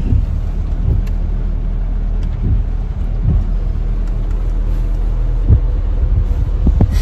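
Car cabin noise while driving: a steady low rumble from the engine and road heard inside the car, with a few short low thumps, the loudest about five and a half seconds in.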